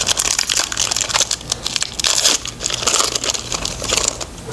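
A foil Pokémon card booster pack being torn open and its wrapper crinkled in the hands: a dense run of crackling rustles that stops shortly before the end.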